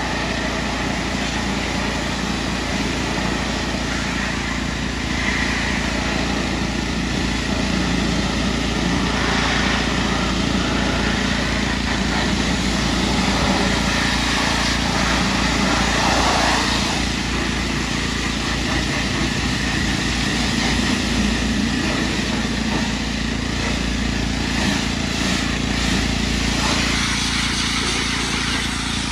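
Pressure washer running steadily, its motor and pump humming under the hiss of the high-pressure water jet as it blasts a car's wheel and tyre and then a door panel. The spray swells and fades a little as the wand moves.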